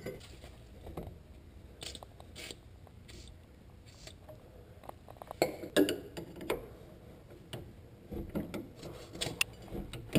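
Scattered small metal clicks, taps and scrapes of a screwdriver working at the parking-brake cable clip on a rear brake caliper. The clicks are sparse at first, bunch together about five to seven seconds in and again near the end, where one sharp click is the loudest.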